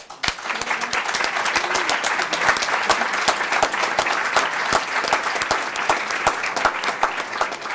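Audience breaks into applause, many hands clapping in a dense, steady patter that starts suddenly after a brief quiet.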